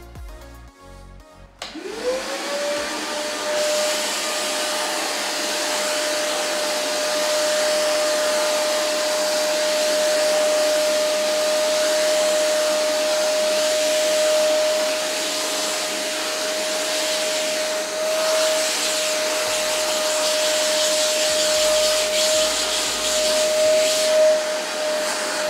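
Wet/dry shop vacuum switching on about two seconds in, its motor whine rising to a steady pitch, then running while the wand sucks sawdust off a vinyl plank floor. Near the very end the motor is switched off and its pitch starts to fall as it winds down.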